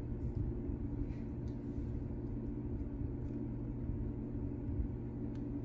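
Steady low background hum, with a few faint light ticks from a vinyl phone skin and its paper backing being pressed and handled.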